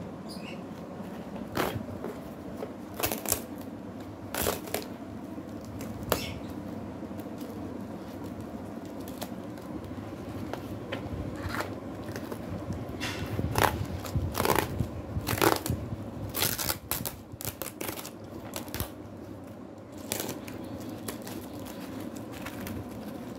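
Cardboard packing and tape being torn and peeled off a nylon easel carry bag: a run of short, sharp rips and crinkles, coming thickest partway through.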